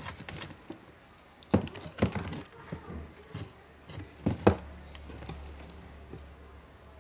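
Sharp knocks and rustles from fingers handling wires at a rocker switch on a wooden board, a few separate knocks with the loudest near the middle and one more about two thirds of the way through, then a faint low hum.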